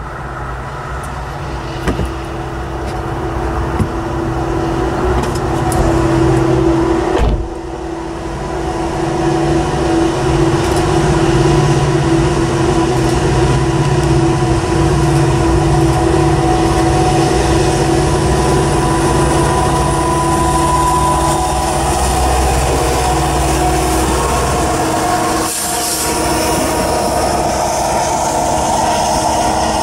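Norfolk Southern intermodal freight train approaching: a steady drone from the locomotives grows louder. In the last few seconds the cars, flatcars carrying highway trailers, roll past close by with the rush of wheels on rail.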